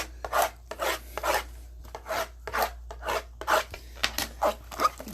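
Repeated short scraping strokes, about two to three a second, from hands working at the wrapping of a trading card box.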